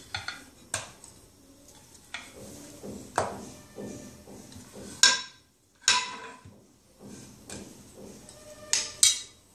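A rolling pin and round rolling board knocking and clattering irregularly on the counter while a ball of paratha dough is pressed and rolled out. The louder knocks come about halfway through and twice near the end.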